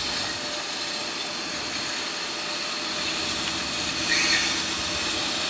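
Stationary electric freight locomotive standing with its equipment running, a steady whirring hum and hiss, with a short brighter hiss about four seconds in.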